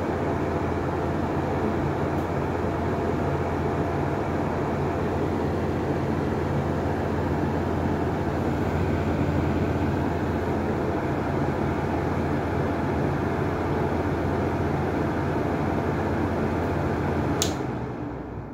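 Lanson style 4 fan with a triangle-bladed propeller running at its turbo speed, a steady rush of air over a motor hum. About a second before the end a sharp click comes, and the sound then dies away as the fan is switched off and slows.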